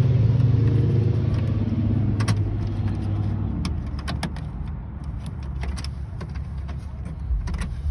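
A vehicle engine's low steady hum that fades away over the first few seconds. Scattered sharp clicks and rattles of small parts being handled run throughout.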